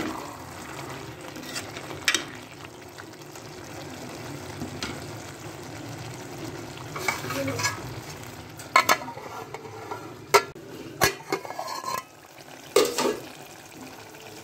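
Chicken and cabbage curry sizzling in a pot while a spoon stirs it, scraping and knocking against the pot several times, with a cluster of knocks in the middle and another near the end.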